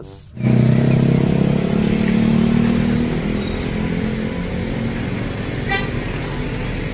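Street traffic: a Transjakarta city bus's engine running as it passes, with cars and motorcycles around it. A low engine hum is strongest in the first three seconds, and a short high beep sounds near the end.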